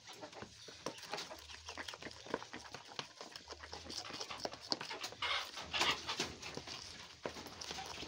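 Wooden spoon beating thick cake batter in a plastic bowl: an irregular run of soft clicks and scrapes.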